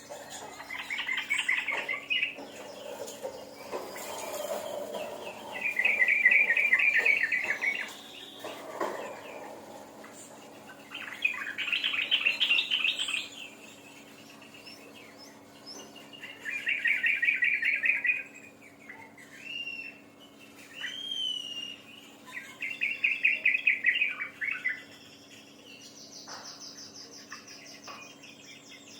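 Songbird singing in rapid trills of about two seconds each, repeated every five or six seconds, with a few rising whistled notes between them and a higher, faster trill near the end. A faint steady hum runs underneath.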